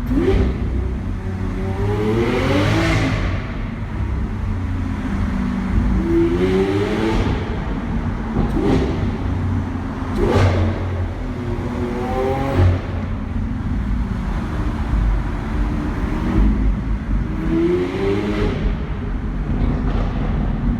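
Lamborghini Aventador SV's V12 engine accelerating hard in a tunnel, its pitch rising in four pulls through the gears, with a few sharp cracks along the way.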